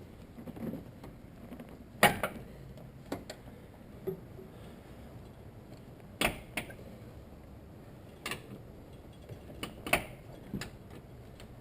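Scattered metallic clicks and knocks of hand tools and metal parts in an engine bay, about ten sharp taps at uneven intervals, as an alternator's mount bolts are undone and the alternator is worked loose.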